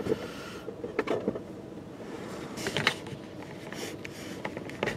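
Karcher Opti Wash 8000 automatic car wash running in the bay ahead: an even hiss of spray, with a few short sharp clicks over it.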